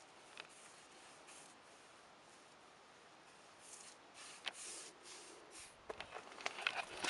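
Faint, soft swishes of a paintbrush stroking paint onto an overhead soffit. Near the end come a run of sharp clicks and crackles.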